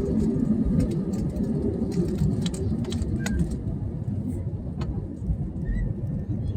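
Steady low rumble of a vehicle in motion, with a few faint clicks over it.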